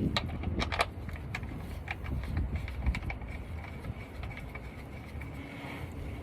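Scattered light clicks and taps as the oil drain plug is fitted back into the truck's oil pan, over a steady low rumble.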